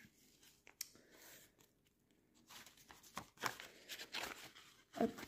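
Clear plastic binder pockets and paper banknotes rustling and crinkling as they are handled, in short scattered crackles that come thickest in the second half, with a louder handling noise at the very end.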